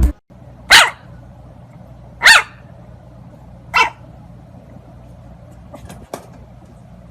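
A dog barking three times, about a second and a half apart, the third bark weaker, followed by a few faint clicks.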